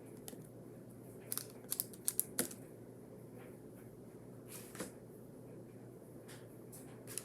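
A few light clicks and taps of small objects being handled, a quick cluster of them about a second and a half to two and a half seconds in, then single ones later, over a faint steady hum.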